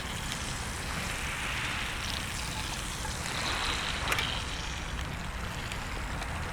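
Steady low rumble of wind and sea surf, with two swells of hiss as waves wash in, and a single sharp click about four seconds in.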